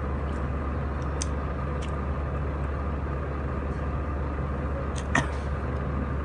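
Quiet eating sounds: a few short wet mouth smacks and clicks from chewing and finger-licking, the loudest about five seconds in, over a steady low hum.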